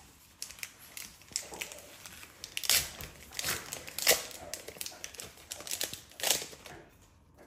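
Wrapper of an Adrenalyn XL trading-card pack being torn open and crinkled by hand: irregular crackling rustles with a few sharper rips, dying down near the end.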